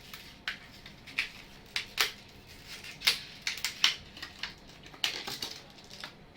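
Irregular sharp clicks and light crackles of plastic and metal parts being handled, as a RAM module is taken in hand and readied for fitting.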